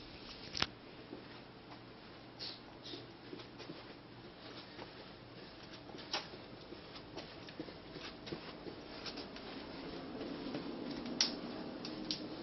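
Quiet indoor room sounds: scattered light clicks, taps and rustles, a few of them sharper. A low steady hum comes in over the last couple of seconds.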